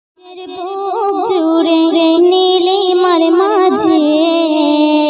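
A girl's solo voice singing the opening of a Bengali gazal (Islamic devotional song), with no instruments heard. It is a wordless, winding phrase that fades in from silence and settles into a long held note near the end.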